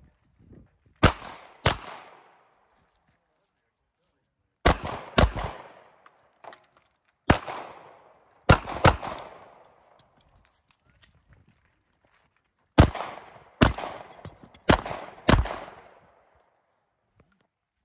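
Handgun shots fired in quick pairs at targets during a timed pistol stage, about eleven shots in all, each with a short echo. Groups of shots are separated by pauses of a few seconds as the shooter moves between positions.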